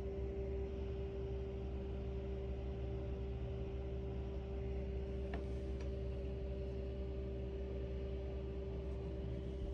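Steady mechanical drone: a low rumble with a constant hum on top, holding the same level throughout, with two faint ticks a little past halfway.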